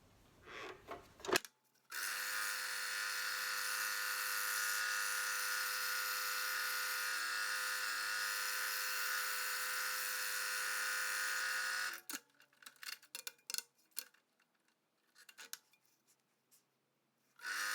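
Scroll saw running steadily with a pitched motor hum. It starts about two seconds in and stops abruptly about ten seconds later. A few light clicks follow, and the saw is running again near the end.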